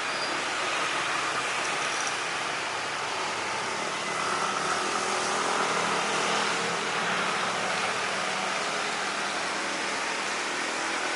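Steady wind noise on the microphone with the hum of an aircraft engine underneath, swelling slightly midway.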